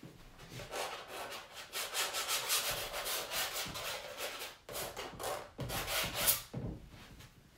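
Quick rubbing strokes of a tool scrubbing across a stretched canvas, several a second, with a few low knocks near the end.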